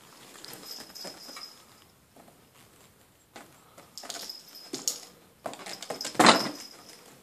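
A kitten's claws scratching and scrabbling on cardboard and quilted fabric as it climbs, in short scratchy spells, with a louder scrabble about six seconds in as it slides back down the fabric.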